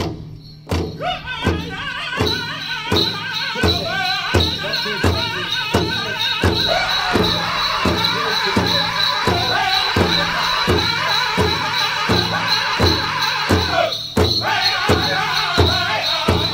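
Powwow drum song for the men's chicken dance: a drum group singing over a steady drum beat of about two strokes a second, starting about half a second in, with a brief drop near the end.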